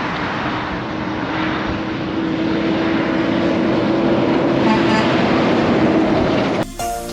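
A steady engine drone over heavy rushing noise, slowly growing louder, then cut off abruptly near the end.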